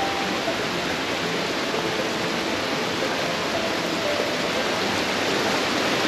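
Running water rushing steadily, as of a forest stream or cascade close by.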